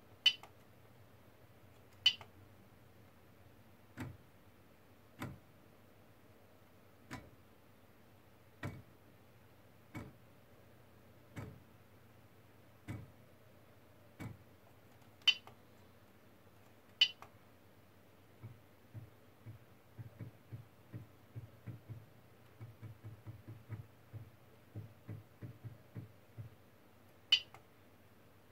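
Stepper motors of a CoreXY 3D printer making a series of short carriage moves over a low steady hum. Each move is a brief click, coming about every second or two, and a few of them are sharper. From about two-thirds of the way through, a quicker run of small knocks follows.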